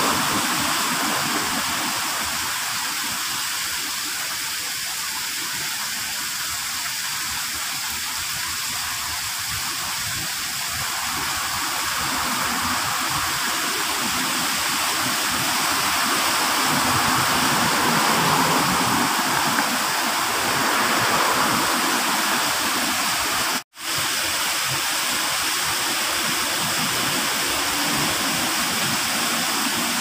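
Steady rush of water from a small artificial rock waterfall spilling into a garden pond. The sound cuts out for an instant about two-thirds of the way through, then carries on as before.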